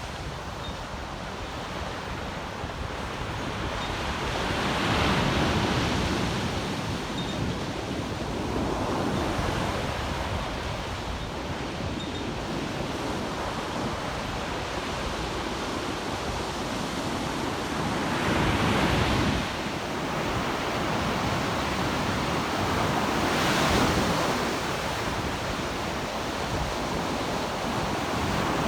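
Ocean surf on a beach, a steady wash of breaking waves with several louder surges as sets come in.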